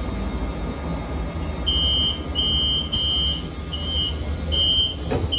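Inside a Solaris Urbino 18 electric articulated bus: a steady low rumble of the bus, and from about a second and a half in, a high electronic warning beep that repeats about six times, each beep short and evenly spaced.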